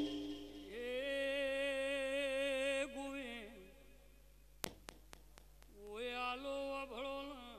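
A single unaccompanied voice holds a long sung or chanted note with a wavering vibrato, then sings a second, shorter held note near the end. A few sharp clicks fall in the pause between them.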